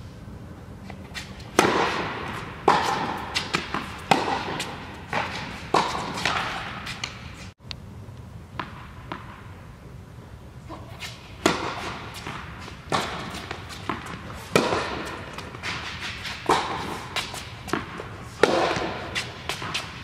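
Tennis rally on an indoor hard court: a string of sharp pops from rackets striking the ball and the ball bouncing, about one every second or two, each with echo in the large hall.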